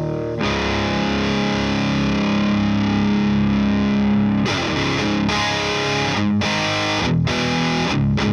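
Overdriven electric guitar, a PRS SE 245 through an SD-1-style overdrive pedal into a Rivera Knucklehead Reverb tube amp on its JCM800-style gain channel. A distorted chord is held for about four seconds, then short chopped chords follow with brief stops between them.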